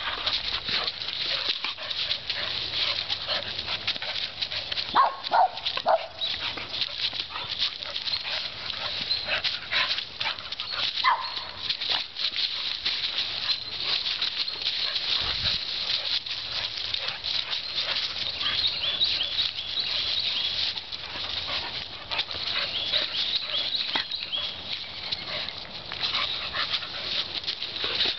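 Dogs playing and scuffling over dry fallen leaves, the leaves crackling and rustling under their paws the whole time. A few short dog yips or growls break through about five seconds in and again around eleven seconds.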